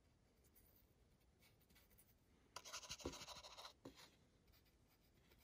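Near silence broken, about two and a half seconds in, by a paintbrush briefly scratching and rustling for just over a second as it works a thin water-based acrylic wash.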